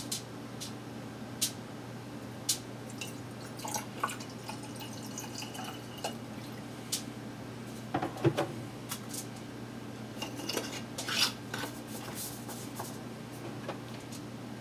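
Scattered small clicks, taps and knocks as a plastic bottle of kerosene lamp oil and a glass mason jar with a metal lid are handled on a counter. The loudest knocks come about eight seconds in. A steady low hum runs underneath.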